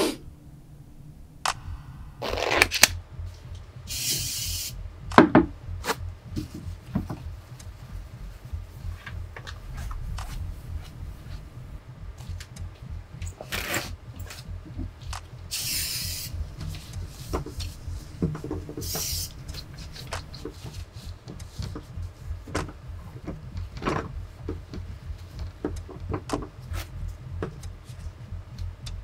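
Cleaning with an aerosol disinfectant and tissues: several short hisses of spray, rubbing and wiping, and clicks and clunks of things handled on a wooden desk and a door handle, over a low steady hum.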